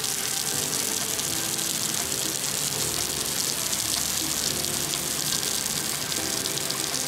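Steady hiss of fine water spray raining down on a radiated tortoise's shell and the wet grass around it.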